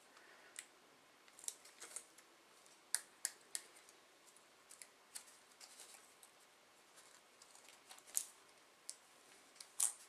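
Aluminium can shims being twisted and worked into a padlock's shackle by hand: a scatter of faint, sharp metallic clicks and scratches, the loudest about three seconds in and just before the end.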